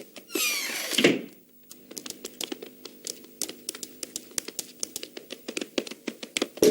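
A cartoon sound effect: a quick falling glide, then rapid, irregular clicking like typing or tapping over soft, held background music tones.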